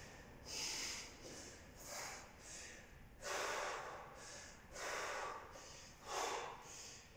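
Heavy, hard breathing of an exhausted athlete: about five loud breaths, roughly one a second, while he recovers between wall walks near the end of a 15-minute workout.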